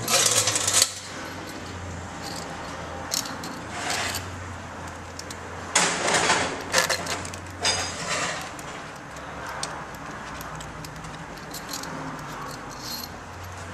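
Metal clinking and rattling of hand tools and bolts at a transmission valve body, in irregular clusters of sharp clicks with a denser run about halfway through, over a steady low hum.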